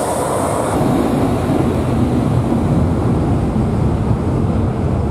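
Boeing 757 airliner's jet engines running at high power for takeoff, a deep steady roar with jet blast buffeting the microphone. A high whine over it fades out about a second in.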